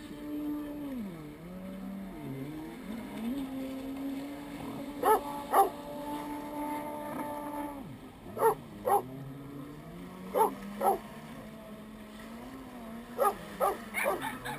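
A dog barking in short pairs every few seconds, then three quick barks near the end, over the steady running of jet ski engines out on the water, their pitch rising and falling as they rev.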